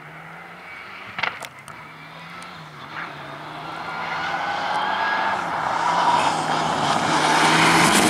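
Rally car approaching on a gravel stage, its engine growing steadily louder over the last five seconds with the pitch shifting as it comes on. A sharp crack sounds about a second in.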